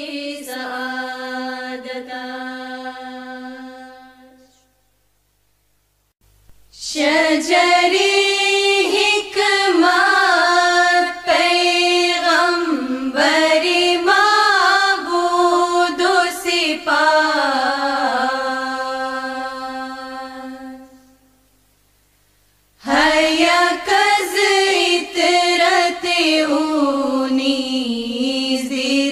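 Farsi qasida chanted by a solo voice in long phrases with ornamented, wavering pitch. A held note fades out a few seconds in, then comes a short silence, then two long sung phrases separated by a pause of about two seconds.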